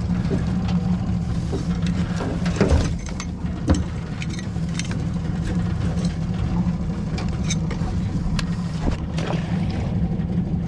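A boat's outboard motor idling steadily, with scattered clicks and knocks as mud crabs are handled in and pulled from a net crab pot; two louder knocks come a second apart, about three seconds in.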